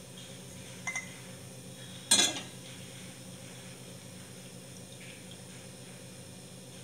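Stainless-steel lid set down on a steel saucepan of dal: a light clink about a second in, then one loud metal clank about two seconds in, over a steady low hum.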